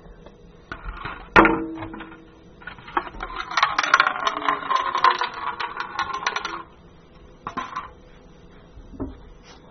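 Kitchen tap running water into a paper bowl for about three seconds, starting around three and a half seconds in. A sharp knock with a brief ring comes about a second and a half in.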